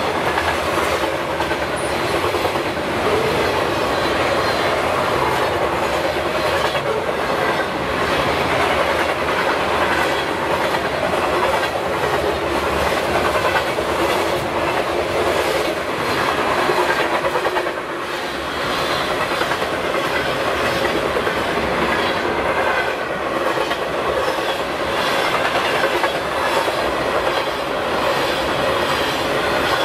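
Freight train of tank cars and boxcars rolling past close by, its steel wheels clicking steadily over the rail joints in continuous wheel-and-rail noise.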